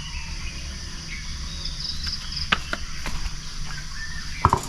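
Insects chirping steadily in the background, with a few sharp clicks and knocks from a wire barbecue grill net being handled.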